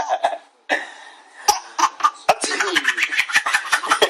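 A baby laughing in quick, rhythmic giggles that break off briefly near the start. A short breathy noise follows, then the giggling picks up again.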